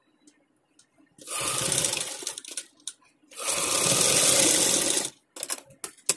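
Black domestic sewing machine running as it stitches, in two short bursts of about a second and two seconds with a pause between them, followed by a few light clicks near the end.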